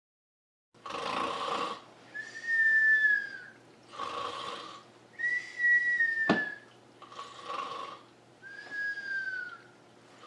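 A person snoring in the cartoon manner: a rasping snore on the in-breath, then a whistle on the out-breath that falls slightly in pitch, repeated about every three seconds. A single sharp click about six seconds in.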